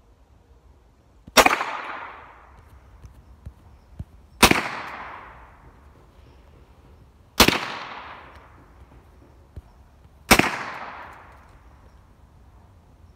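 Four rifle shots, about three seconds apart, each sharp crack followed by an echo that fades over about a second.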